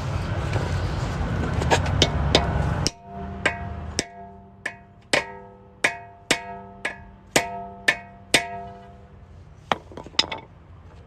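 A hammer striking a metal lug-nut extractor socket, driving it onto a locking lug nut: about a dozen sharp blows, roughly two a second, each leaving a metallic ring. Before the blows, a loud low rumble of roadway noise with a few knocks cuts off abruptly.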